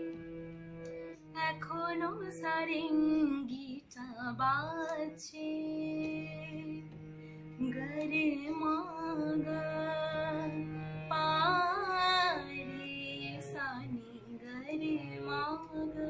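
Background music: a high voice sings a gliding, ornamented melody in short phrases over a steady held drone.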